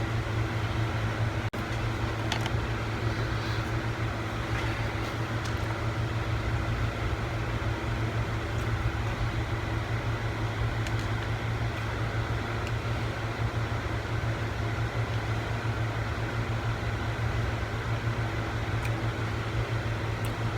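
Steady low mechanical hum, like a fan or air-conditioning unit running, with a few faint clicks.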